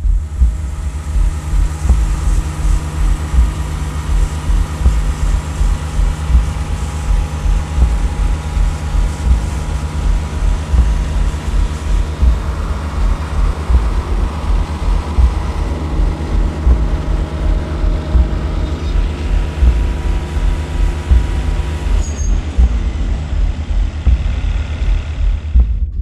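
Wood-Mizer LT40 Wide bandsaw mill running and sawing through a butternut log: a loud, steady machine drone with a held tone, changing about four seconds before the end. A pulsing low beat runs underneath.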